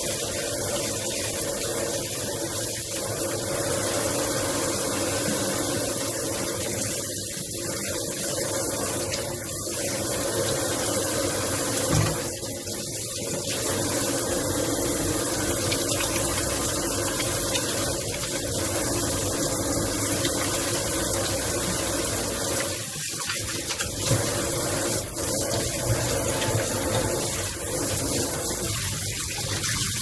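Kitchen faucet running a steady stream into a stainless-steel sink, the water splashing over hands scrubbing and rinsing beef tripe, with a couple of light knocks in the sink.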